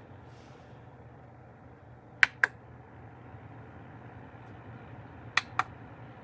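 Two sharp double clicks about three seconds apart over a steady low hum.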